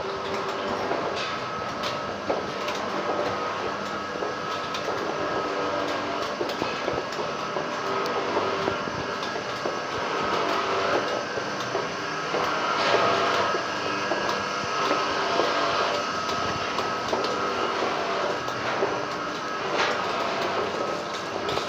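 Machinery running steadily, with a continuous rattling clatter and a held whining tone.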